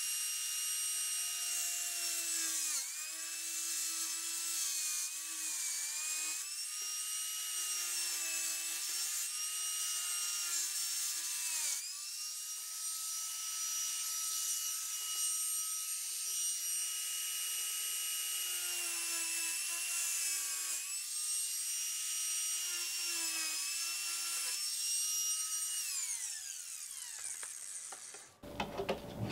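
Small corded diamond-blade saw whining as it cuts cement backer board, its pitch sagging each time the blade bites into the board, then winding down near the end.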